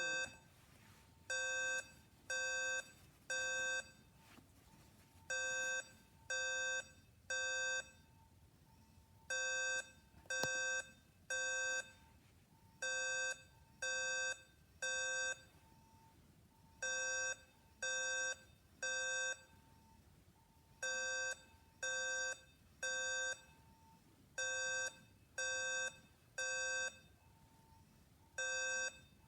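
Fire alarm beeping in the temporal-three evacuation pattern: three short beeps, a pause, then again, repeating about every four seconds.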